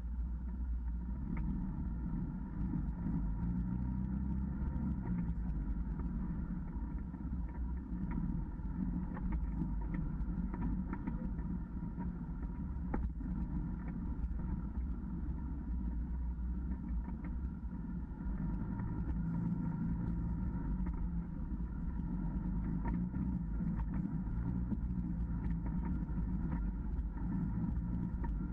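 Side-by-side utility vehicle's engine and drivetrain running steadily while driving a muddy, rutted trail, with a steady high whine and scattered clicks and rattles from the bumps.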